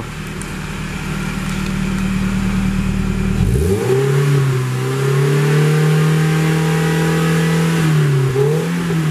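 Toyota 1ZR 1.6-litre inline-four engine heard at the tailpipe: it idles steadily, then is revved up about three and a half seconds in and held at raised revs, dipping and picking up again near the end.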